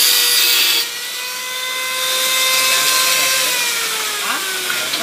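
Angle grinder cutting a metal grille: a harsh grinding hiss over the motor's whine for about the first second. Then the disc runs free with a steady whine, which drops in pitch and fades near the end as the grinder winds down.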